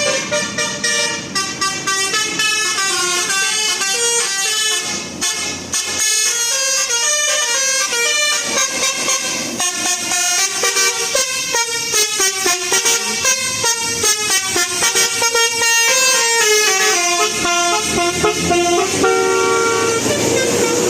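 A bus's Basuri telolet horn, a multi-tone musical horn, plays a quick tune with its notes changing several times a second. It ends on one held note.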